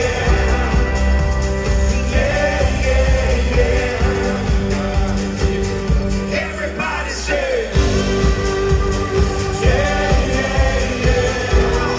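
A live rock band playing with several singers on held, sung lines, heard from the audience. The bass drops out briefly a little past the middle, then the full band comes back in.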